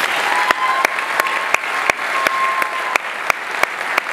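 Audience applauding, with one nearby clapper keeping a steady beat of about three loud claps a second above the rest.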